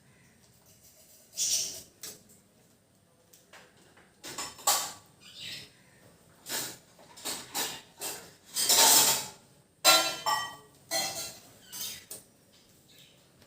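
Small hard objects being handled on a work surface: a dozen or so irregular clinks, knocks and short scrapes, some with a brief ring, the loudest and longest about nine seconds in.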